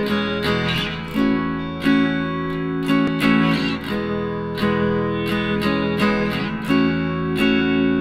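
Background music: a strummed acoustic guitar playing steady chords.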